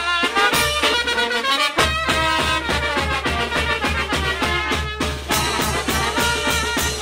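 Brass band music with drums, a lively tune played on horns over a steady beat. The low bass pulse comes in about two seconds in.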